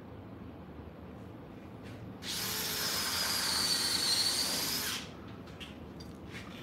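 Router mounted under a benchtop router table, switched on and run for about three seconds with a steady high whine, then switched off; a brief test run of the newly installed router.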